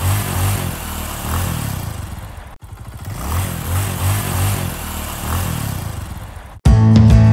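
A small motorboat's engine running, its pitch rising and falling, with a brief cut in the sound about two and a half seconds in. Acoustic guitar music starts suddenly near the end.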